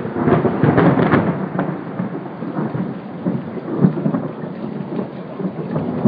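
Thunder rolling after a nearby strike: loud and crackling at first, then a long rumble that slowly fades.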